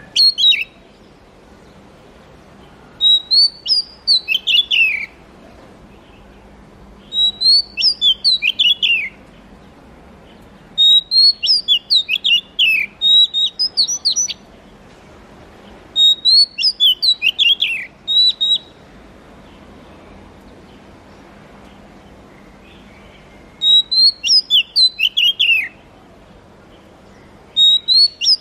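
An Oriental magpie-robin singing. It gives phrases of rapid, high whistled notes, many sliding downward, each phrase lasting about two seconds. The phrases repeat every few seconds, with a longer pause about two-thirds of the way through.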